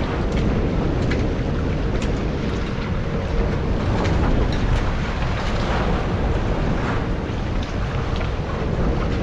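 Wind buffeting the microphone over open sea, with waves washing around the boat and a faint steady hum underneath.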